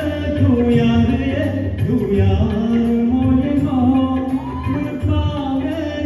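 A man singing a song live into a microphone, holding long notes with slides in pitch, over a musical accompaniment with a steady low beat.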